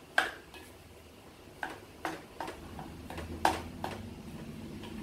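A spatula knocking and scraping against a non-stick kadhai while stirring thick mashed-potato stuffing, with about six sharp knocks at irregular intervals.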